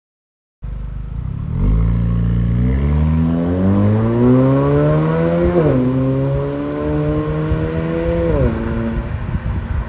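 Ford Focus ST Wagon accelerating hard through a CGW aftermarket cat-back exhaust, the engine note rising in pitch through the gears with two upshifts, about halfway through and near the end, each dropping the revs before it climbs again.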